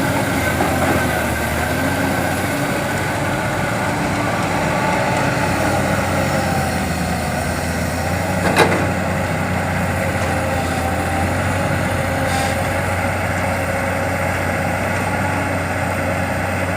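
Heavy earthmoving machinery's diesel engine running steadily, with a single sharp knock about eight and a half seconds in.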